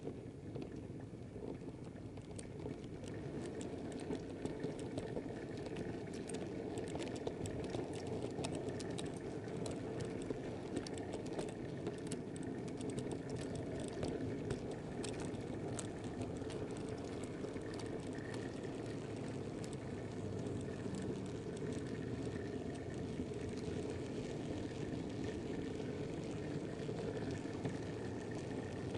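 Model railway wagon wheels rolling along the track as the goods train runs: a steady rumble with many sharp, irregular clicks over rail joints and pointwork.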